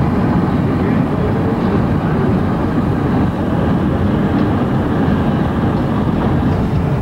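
Steady road and wind rumble from a car driving at speed, heard from inside the moving car.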